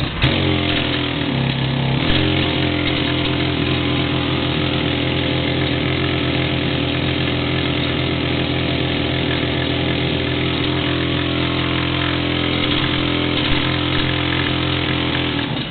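Handheld rock drill running steadily as it drills a dowel hole into rock, its pitch shifting and then settling about two seconds in.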